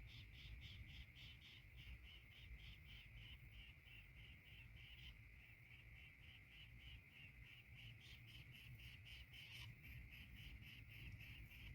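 Faint insect chorus chirring steadily, with an even pulse of about four chirps a second over a continuous high buzz, under a low background rumble.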